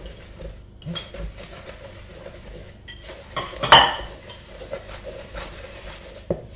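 Wooden spoon stirring a stiff dough of flour, beaten egg and milk in a mixing bowl, scraping and knocking against the bowl's sides, with a louder clink a little under halfway through.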